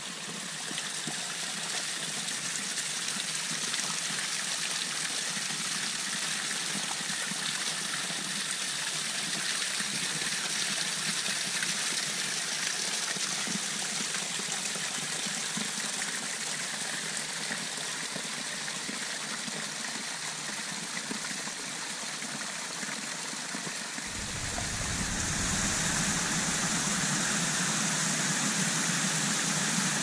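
Small waterfall trickling and splashing down mossy rock, a steady rushing of water. About 24 seconds in it turns louder and deeper, a fuller stream rushing over rocks.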